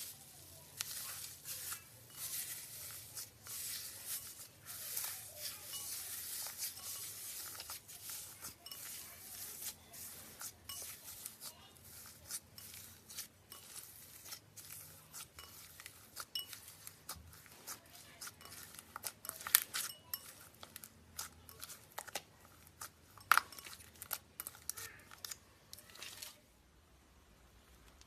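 Hands mixing and kneading gold foil slime: dense crinkling crackle and small wet clicks for the first several seconds, then scattered sharper clicks and pops, the loudest about 20 and 23 seconds in.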